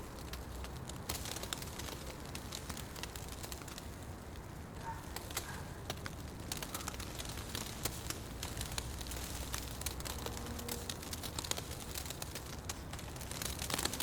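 Fire burning in a fireplace: irregular crackles and pops over a low steady rumble, with a burst of louder pops near the end.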